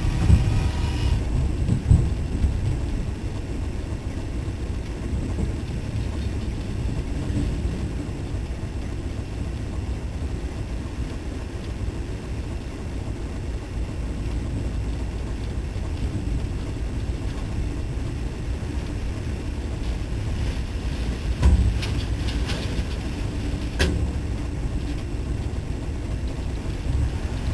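Steady low rumble of a diesel freight locomotive under way, heard from on board, mixed with wind buffeting the microphone in rain. A couple of sharp knocks come about three quarters of the way through.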